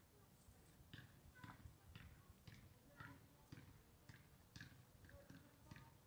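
Faint, even ticking, about two ticks a second.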